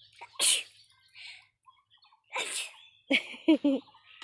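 A person sneezing: one sharp, loud sneeze about half a second in and another after about two seconds, followed by a few short vocal sounds.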